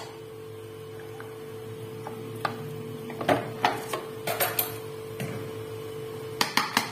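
Scattered light knocks and clicks of kitchen handling around a plastic mini chopper bowl: a plastic bottle and a spoon being moved. A steady hum runs behind them.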